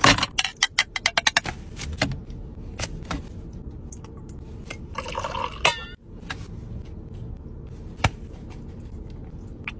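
Water poured from a small plastic bottle in a short stream about five seconds in, ending in a gurgle. Before it comes a quick run of clicks and taps, and a single sharp tap near the end.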